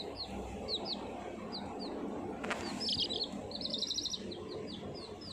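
Baby chicks peeping: short, high, falling peeps about two a second, with a quicker run of rapid peeps a little past the middle and a single click about halfway.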